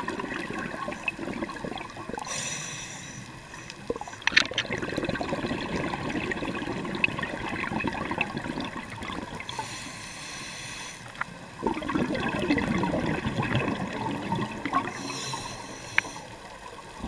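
A scuba diver breathing through a regulator underwater. A high hissing inhale comes three times, about two seconds in, near ten seconds and near fifteen seconds. Each is followed by a longer rush of exhaled bubbles.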